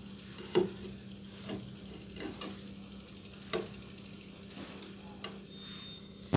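Small scattered clicks and taps as fingers handle an amplifier IC and the thin wire leads of resistors and a capacitor, about six in all, the loudest about half a second in and about three and a half seconds in. A steady low hum runs underneath.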